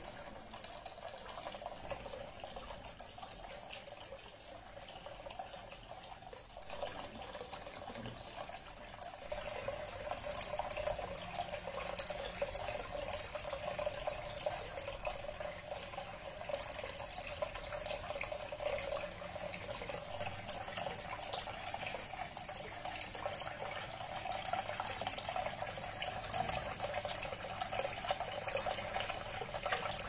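Homemade tabletop waterfall fountain running: water pouring from a raised spout into a small stone-lined pool and trickling from three spouts into the basin below, a steady splashing trickle that gets louder about ten seconds in.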